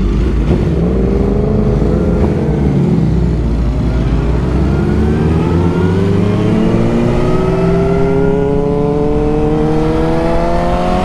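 2001 Suzuki GSX-R1000's inline-four pulling away from a stop and accelerating. The engine note wavers over the first few seconds, then rises steadily through the second half of the clip.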